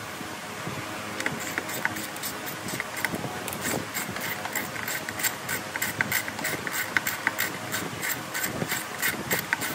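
Regular sharp clicks, about three or four a second, starting about a second in, over a steady background hum.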